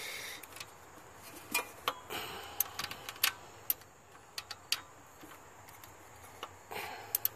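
Socket ratchet clicking in short, irregular strokes as the alternator bolt is tightened to tension the drive belt.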